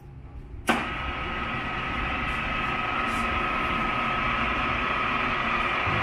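Cincinnati 21 drill press with a 3 hp motor, switched on with a sharp click under a second in, then running steadily with a whine, getting a little louder over the next couple of seconds.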